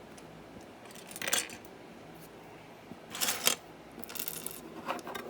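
Small plastic LEGO pieces clicking and rattling as 1x1 tiles are handled and pressed onto stacked 1x1 bricks, in four short spells of clicks.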